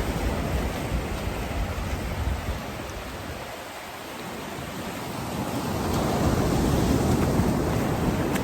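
Ocean surf washing up on the beach: a steady rushing that fades to its quietest about four seconds in, then swells again as the next wave comes in.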